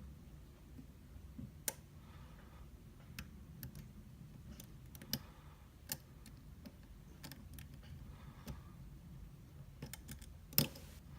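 Scattered light metallic clicks and ticks of a lock pick working the pins of an Abus D6 dimple euro cylinder, irregularly spaced, with a sharper, louder click and a quick run of clicks near the end.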